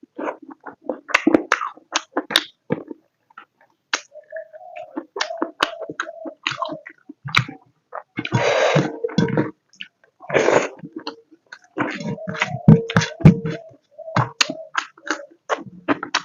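Close-up mouth sounds of someone eating pork curry and rice: wet chewing clicks and lip smacks in quick irregular runs, with two longer hissing bursts about halfway through.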